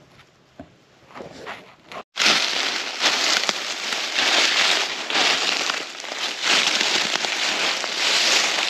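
Footsteps crunching through dry leaf litter at a walking pace, soft at first, then loud and steady after a brief break about two seconds in.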